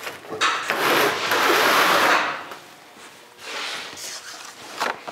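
Sheet steel scraping and sliding over a steel work table as the panel and pieces on it are moved by hand, loudest for about a second and a half near the start, with quieter rubbing later and a sharp knock near the end.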